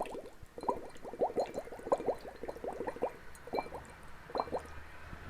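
Bubbles blown through a plastic drinking straw into a glass of water: a quick run of short gurgling blips, each rising in pitch, with the straw low in the water for a deeper sound.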